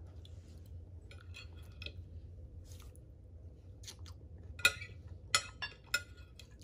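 Metal cutlery scraping and clinking on a plate as leftover food is picked at, with a few sharp clinks in the second half, over a low steady hum.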